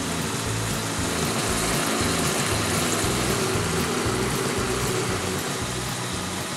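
Lamb, onion and carrots boiling hard in water in a wok over a gas burner: a steady bubbling hiss as the liquid boils down before the rice is added. Background music with a bass line plays underneath.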